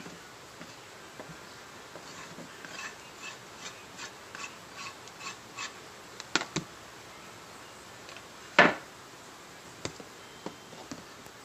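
A utensil scraping whipped cream mixture out of a mixing bowl in a run of short, even strokes. Then come a couple of sharp clicks and one louder knock, from a utensil or bowl striking against the tub.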